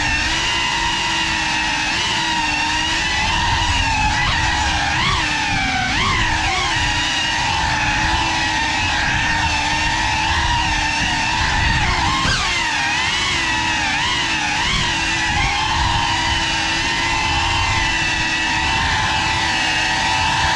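Brushless motors and ducted propellers of a 6S Geprc Cinelog35 cinewhoop FPV drone, whining steadily in flight. The pitch swoops up and down with short throttle changes, several times in the first half and again around the middle.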